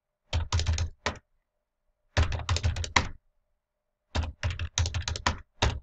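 Computer keyboard typing: three quick runs of keystrokes, each about a second long, separated by short silent pauses.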